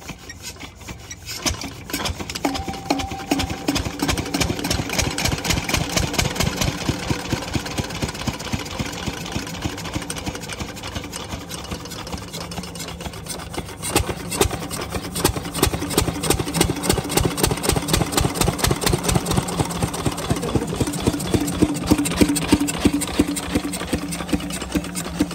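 A 12 hp single-cylinder stationary diesel engine is hand-cranked and catches about a second and a half in. It then runs with a rapid, even exhaust beat while driving a belted irrigation water pump.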